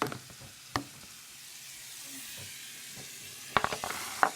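Water running from a bathroom tap, a steady hiss, with a few sharp clicks and knocks near the start and a quick run of them near the end.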